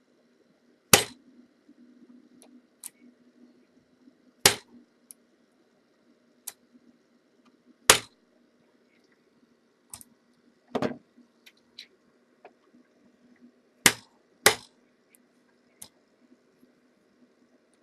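A dimple bump key being struck in a dimple lock: six sharp metallic knocks a few seconds apart, with faint clicks between them as the key is reset and the pins jump.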